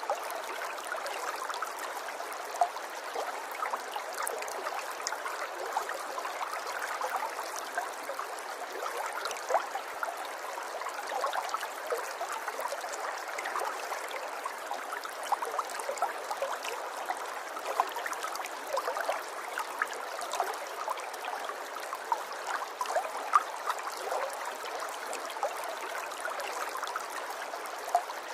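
River water flowing and babbling over stones, a steady rush full of small splashes and gurgles.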